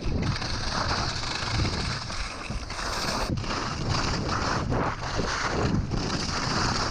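Skis scraping over hard, icy snow on a downhill run, the scrape swelling and easing as the skier turns, with wind noise rumbling on the microphone.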